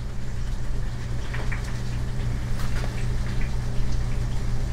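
Eggs frying in a pan, a steady crackling sizzle with faint small pops, over a steady low hum.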